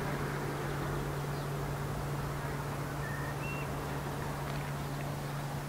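Steady outdoor background noise with a constant low hum, and two short, faint bird whistles about three seconds in. The elephants do not trumpet.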